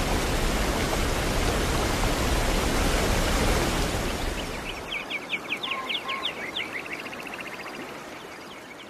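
A waterfall rushing heavily for the first four seconds or so, then dropping to a softer flow of river water. Over the softer part a bird gives a rapid run of high chirps.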